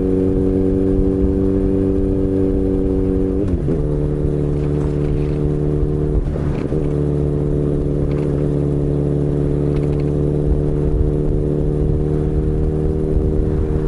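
Kawasaki Z900RS inline-four running through an aftermarket MAVERICK slip-on silencer while riding at a steady speed. The engine note holds steady, then drops to a lower steady pitch about three and a half seconds in.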